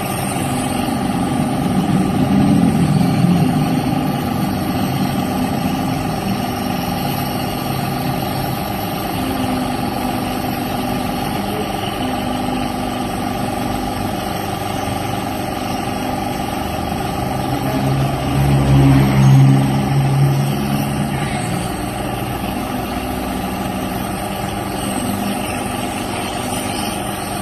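Nebulizer compressor running with a steady mechanical hum while it nebulizes medicine for a child's cough and cold. A louder, lower sound comes in twice, briefly, early on and about two-thirds through.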